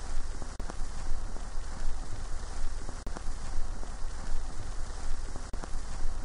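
Vinyl record surface noise from a stylus riding a spinning record: a steady crackle and hiss over a low rumble, with a sharper click about every two and a half seconds.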